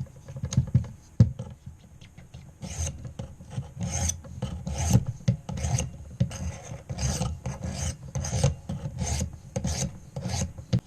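400-grit sharpening stone of a guided knife sharpener being stroked across a clamped knife blade: a regular run of rasping strokes about two a second, after a few knocks near the start.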